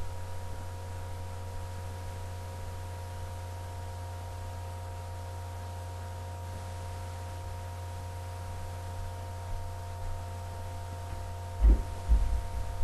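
Steady low electrical hum with a few faint steady higher tones above it. Near the end, a sharp thump followed by a few softer knocks.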